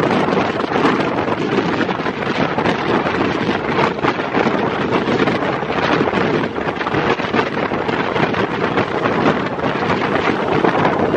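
Steady wind rushing over the microphone of a camera held out of a fast-moving train, over the running noise of the trains at speed.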